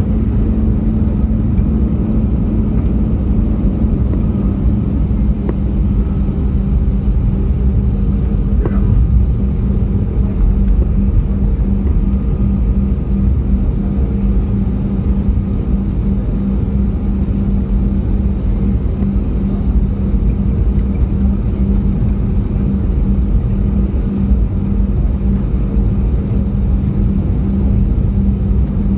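Cabin noise of an Airbus A320neo taxiing in after landing, heard inside the cabin: a steady low rumble from the idling engines and rolling wheels, with a constant low hum over it.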